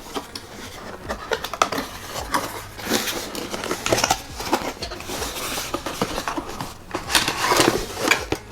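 Cardboard box and packaging being opened and handled: irregular rustling, with scattered knocks and clinks as the camp stove parts are lifted out. The busiest handling comes about three and four seconds in and again near the end.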